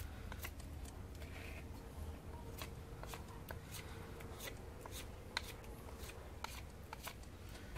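A Ray Mears-design bushcraft knife with an O1 tool-steel blade shaving down a wooden stick: a string of short, crisp cuts and scrapes at an uneven pace, about two a second.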